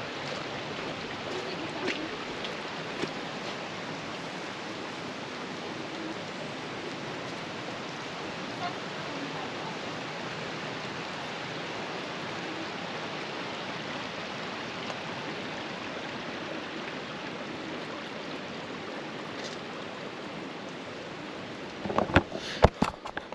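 Steady rushing of flowing water, an even hiss that holds throughout. A few sharp knocks come near the end, louder than the water.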